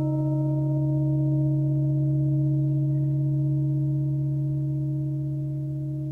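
Crystal singing bowls ringing on after a mallet strike: a deep steady hum with several higher overtones, with no new strike, fading slightly near the end.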